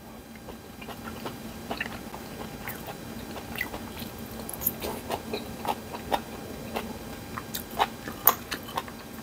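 A man chewing and eating close to a clip-on microphone, with mouth smacks and scattered small clicks of a metal spoon and chopsticks against ceramic bowls.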